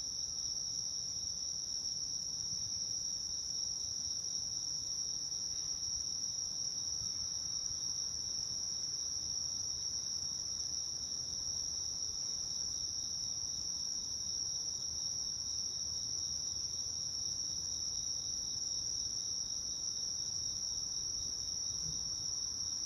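Steady high-pitched chorus of night insects chirping without a break.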